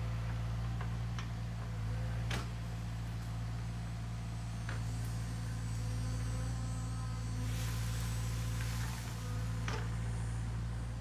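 Sany SY50U mini excavator's engine running steadily at working revs while it clears brush, with a few sharp cracks and knocks and a brief rushing noise about eight seconds in.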